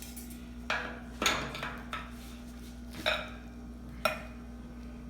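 Dishes and utensils clinking and clattering: several short knocks, the loudest a little over a second in, with single knocks at about three and four seconds.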